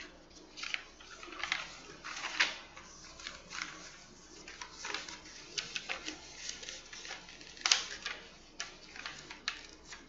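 Irregular light key clicks of typing on a computer keyboard, scattered clicks with short pauses between them.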